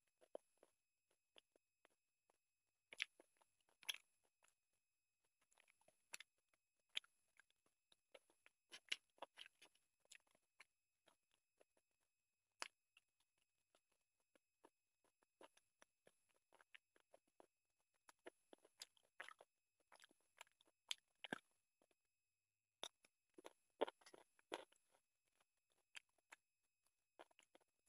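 Close-up sounds of a person eating rice and chicken curry by hand. Irregular wet smacks and clicks of chewing come with the squish of fingers mixing rice on a plate.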